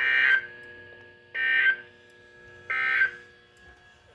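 Emergency Alert System end-of-message code: three short bursts of buzzy, warbling digital data tones, about a second and a half apart, marking the close of the weather warning. A faint steady hum from the radio receiver runs underneath.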